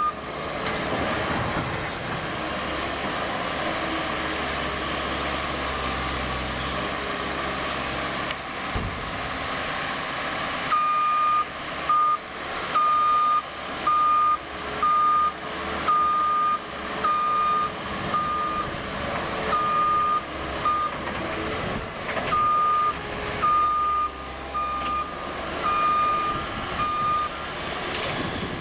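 New Holland L230 skid steer loader's diesel engine running under work. From about ten seconds in, its backup alarm beeps repeatedly, about once a second, as the machine reverses.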